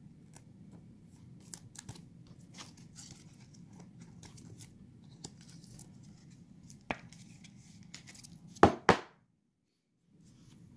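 A trading card being handled and fitted into a clear plastic card holder: soft rustles and light plastic ticks, then two sharp knocks close together near the end.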